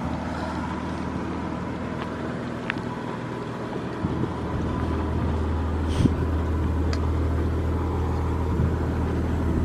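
Nissan R31 Skyline's RB30 straight-six engine idling steadily, growing louder about four seconds in, with a few faint clicks.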